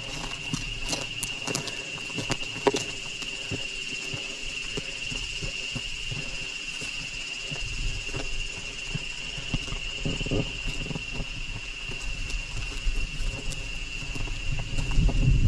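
Steady high-pitched insect drone held at one pitch throughout, with scattered clicks and knocks and a low rumble that comes in about halfway.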